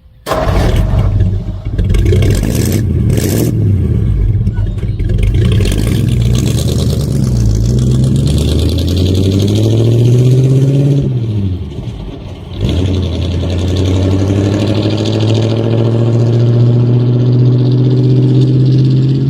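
A vehicle engine running and being revved. Its pitch rises and falls a few times, drops away briefly about twelve seconds in, then settles into a steady, slowly climbing run.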